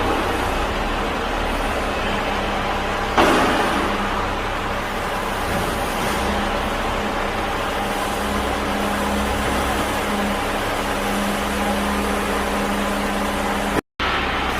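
Steady machinery running with a low hum, broken by one sharp knock about three seconds in and a brief cut-out near the end.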